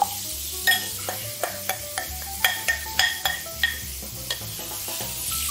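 A metal spoon clinking and scraping against a glass mixing bowl, about a dozen quick taps, several ringing briefly, as the last of a sauce is spooned out. Under it, the steady sizzle of pork meatballs frying in a pan.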